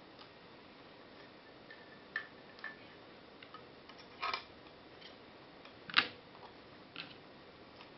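A few light clicks and taps as small case hardware (distance bolts, nuts, feet) and the bottom plate are handled and fitted together, the sharpest click about six seconds in.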